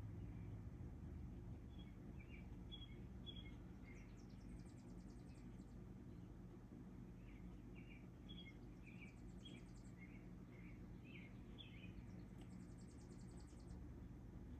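Faint chirping of small birds: many short, scattered chirps, with a fast, high, buzzy trill three times, over a steady low hum.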